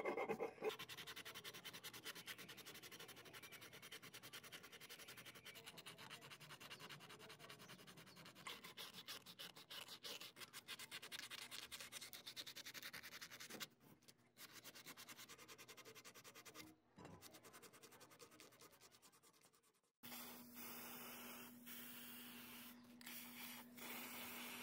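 Fingers rubbing and pressing masking tape down over a steel plate: a faint, dry scratching and rubbing that fades out about 20 seconds in. Then a steady hiss, typical of aerosol spray paint being applied.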